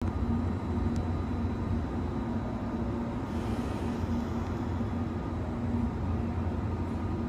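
JR Kyushu 883 series electric train standing at the platform, its on-board equipment humming steadily in a low drone with a higher steady tone above it. There is a brief click about a second in and a short hiss a little after three seconds.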